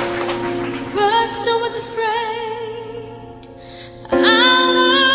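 Background music: a slow song with a singer holding long notes with vibrato, swelling louder about four seconds in.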